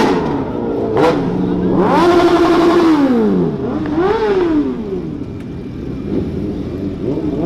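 Sport motorcycle engines revving: a held high rev that falls away about three seconds in, then a quick rise and fall in pitch about a second later, with a sharp crack about a second in.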